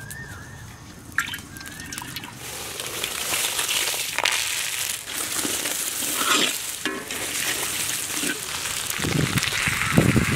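Hot oil in a large iron wok sizzling and spattering as chopped vegetables and whole spices are tipped in and stirred, with scattered clicks. The sizzle gets louder from about two seconds in.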